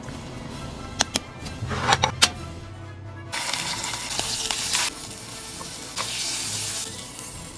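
Scallop searing in hot oil in a frying pan: sizzling starts abruptly a little over three seconds in, eases off, and flares again about six seconds in as the scallop is turned with tongs. Before the sizzling, a few sharp clicks and knocks.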